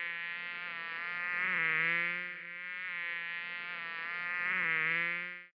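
A fly buzzing in flight: a steady wing drone that swells louder twice, wavers a little in pitch, and stops near the end.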